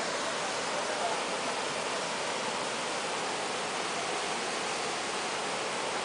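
Waterfall on a river, cascading over rock steps: a steady, unbroken rush of falling water.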